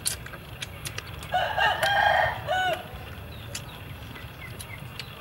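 A rooster crowing once, starting about a second and a half in and lasting about a second and a half.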